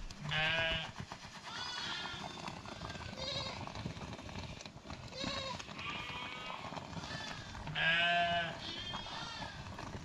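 A flock of herd animals bleating, with many calls overlapping at different pitches. Two loud, long, quavering bleats stand out, one about half a second in and one about eight seconds in.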